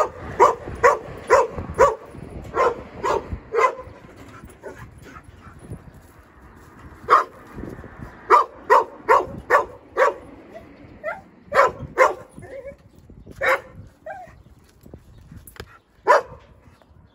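Jindo dogs barking in short, sharp yips while two dogs scuffle. The barks come in quick runs of several, with pauses between, then thin out to single barks toward the end.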